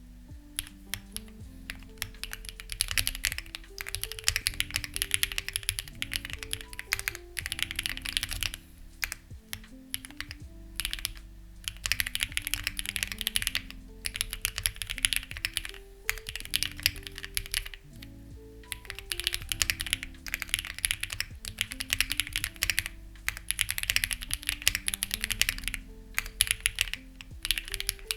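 Typing on a Lucky65 v2 mechanical keyboard with stock, unlubed HMX Ziwei switches and clone CMK keycaps: fast runs of key clacks with brief pauses between them, over soft background music.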